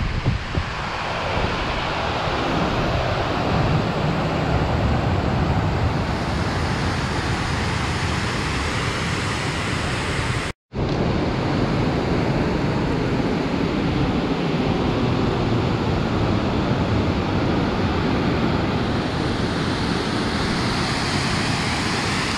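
Steady rush of falling water from Horsetail Falls on Pyramid Creek. It drops out for an instant about ten seconds in.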